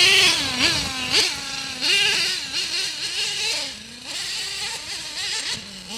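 Nitro engine of an HPI Savage RC monster truck running at high revs. The pitch rises and falls repeatedly as the throttle is worked.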